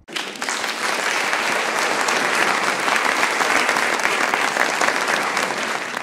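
Applause: a burst of many hands clapping that starts abruptly and stops about six seconds later.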